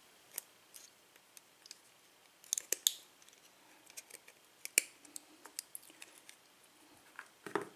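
Needle-nose pliers working the retaining clip off the back of a CES euro lock cylinder: scattered small metallic clicks and scrapes, with a quick cluster about two and a half seconds in, a sharper click near five seconds, and more clicks near the end.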